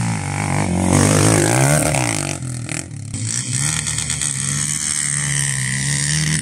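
Off-road motorcycle engine revving, its pitch rising and falling, loudest about a second or two in.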